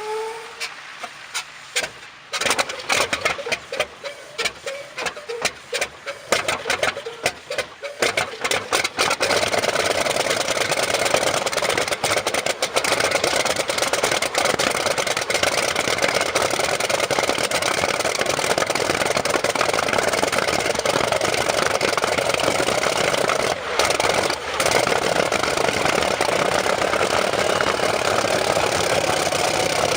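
Old helicopter engine starting after long disuse: it fires unevenly with a run of loud pops and bangs, then catches about nine seconds in and settles into steady running.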